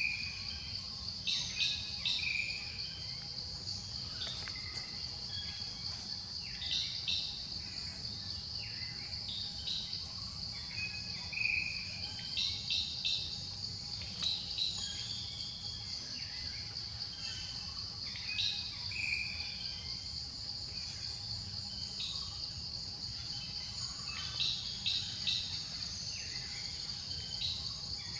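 Steady, high-pitched insect chorus like crickets, with short bird chirps every few seconds over a low background rumble.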